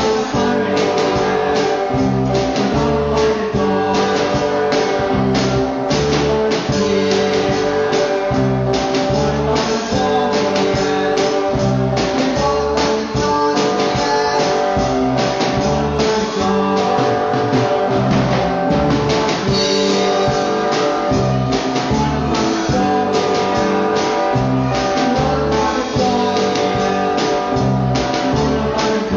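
Amateur rock band playing live: guitars over a drum kit keeping a steady beat.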